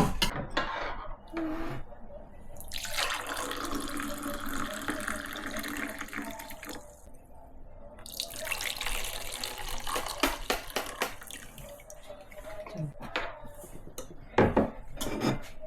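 Tap water running into a sink in two stretches, stopping for about a second partway through. A few short knocks near the end.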